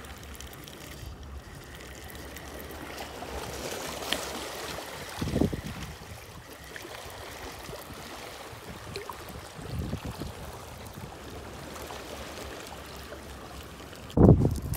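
Water washing and lapping against shore rocks, with a few low thumps, the loudest near the end.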